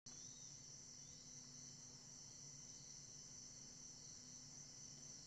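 Faint, steady high-pitched insect chorus, like crickets chirring, over a weak low hum.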